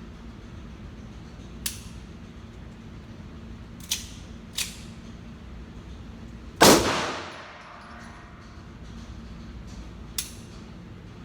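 9mm pistol shots. One loud, close shot with a ringing tail comes about two-thirds of the way through, and four sharper, quieter cracks are spread across the rest, over a steady low hum.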